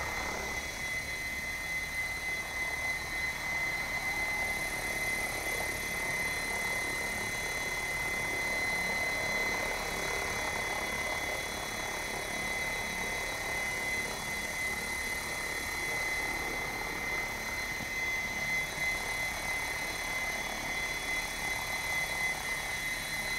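Assault 700 electric RC helicopter hovering at low head speed (about 1100 rpm): a steady whirring rotor noise with a thin, steady high whine running through it.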